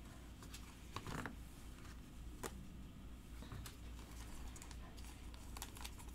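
Faint, scattered light clicks and taps of trading cards being handled and set down on a table, over a low steady hum.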